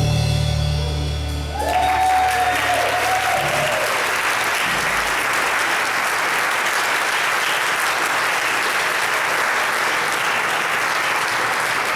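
A congregation applauding steadily after a song ends, with a brief cheer from one voice as the clapping starts. The last held chord of the music dies away in the first second and a half.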